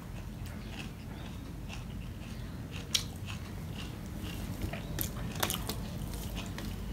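Close-up eating sounds: a man chewing a mouthful of rice with notha shak (mixed greens) and tomato, with scattered sharp wet mouth clicks and smacks. A steady low hum runs underneath.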